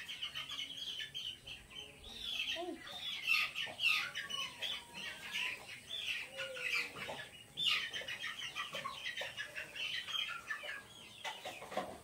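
Birds chirping in the background: many short, high calls overlapping, easing off briefly a few times.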